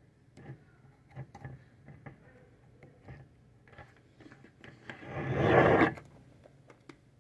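Slime being stirred and squished in a plastic cup, with small sticky clicks and squelches. About five seconds in comes a louder scraping noise, about a second long, as the plastic cup is gripped and taken off the table.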